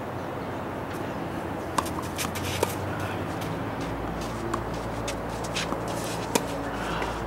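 Tennis rally on a hard court: several sharp pops of the ball off racket strings and court, the loudest about six seconds in as the near player hits the ball, with shoe scuffs. A low steady rumble joins about four seconds in.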